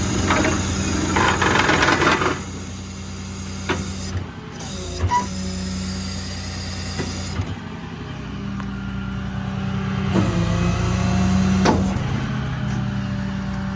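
6.7 L Cummins diesel engine idling steadily, with a few sharp clicks and knocks over it.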